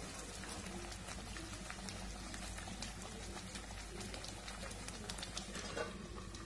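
Watery masala gravy with boiled eggs simmering in a kadai, a faint, steady crackle of small bubbles popping. A light clink near the end as a steel lid is set on the pan.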